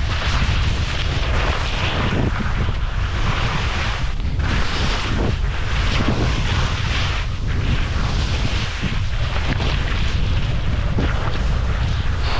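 Wind buffeting the microphone while skis scrape and hiss over soft spring snow on a fast descent, the scraping swelling with each turn.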